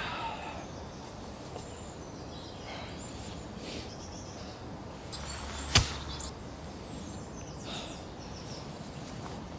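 Woodland ambience with small birds chirping at intervals, and one sharp snap or click a little before six seconds in.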